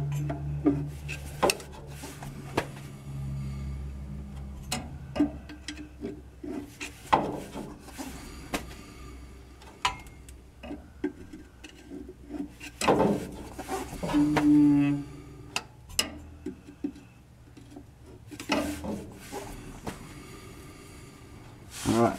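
Rear Huck drum brake of a 1949 Chevy 3100 being adjusted while the wheel is turned by hand. The shoes drag on the drum with a low groan, meaning they are still set too tight, amid repeated clicks and knocks of a tool on the adjuster.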